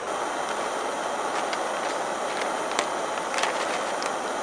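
Portable gas cooker burner running with its flame turned up, a steady hiss as it heats a pot of water toward the boil, with a few light ticks.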